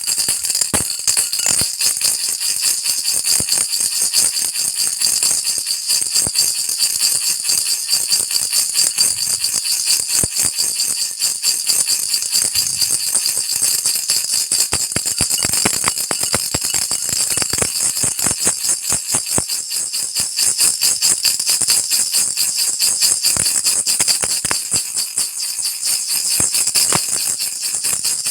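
Baby rattle shaken rapidly and without pause, a dense, bright, high-pitched rattling that eases a little about three-quarters of the way through.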